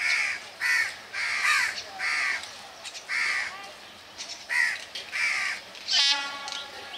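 Crows cawing over and over, about eight short harsh calls with gaps between them, and one brief, different pitched call near the end.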